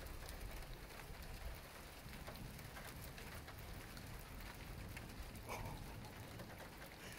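Steady rain falling during a thunderstorm, a faint even hiss dotted with sharp drop ticks, and a low rumble that fades in the first second and a half.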